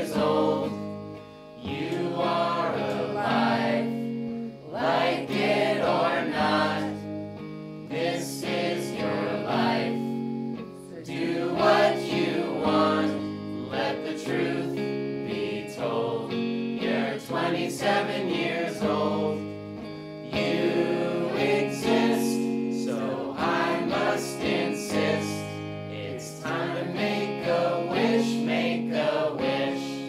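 A song with a group of voices singing together over guitar accompaniment.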